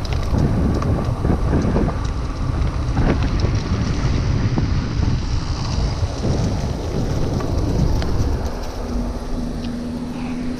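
Wind rushing over the microphone of a handlebar-mounted camera on a moving mountain bike, with tyre rumble and scattered knocks from bumps in the path. A low steady hum joins near the end.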